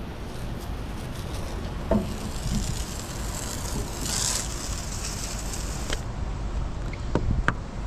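Wind noise on the microphone, with the hiss of water from a garden-hose spray nozzle rinsing a yacht's deck, strongest about four seconds in, and a few light knocks near the end.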